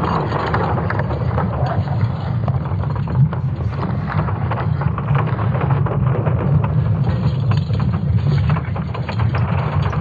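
Sonification of Earth's magnetic field made from Swarm satellite measurements: a dense, steady low rumble with crackling running through it.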